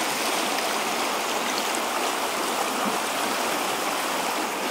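Shallow, stony river running over a riffle: a steady rush of water.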